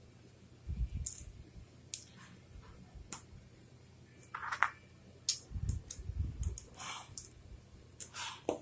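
Lego plastic pieces being handled and pressed together: scattered sharp clicks. Dull thumps come about a second in and again around the middle.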